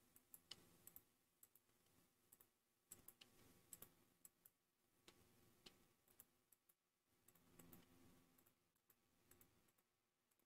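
Faint, irregular computer mouse clicks, a dozen or so scattered over near silence.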